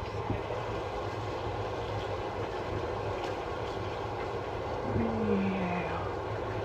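Water running steadily from a kitchen faucet into the sink, with a short low falling sound about five seconds in.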